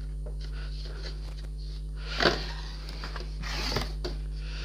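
Large cardboard model-kit box being handled as its lid is lifted off: a single knock about two seconds in, then a brief scraping rustle of cardboard, over a steady low hum.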